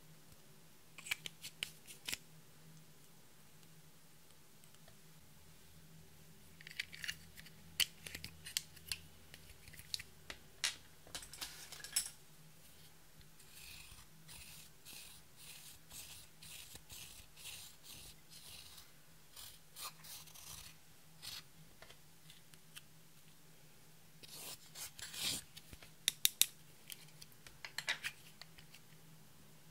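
A plastic spatula scraping and crumbling pressed eyeshadow out of a plastic compact into a glass dish, in runs of quick scratchy strokes, with sharp clicks and taps of the plastic makeup cases a second in and again near the end.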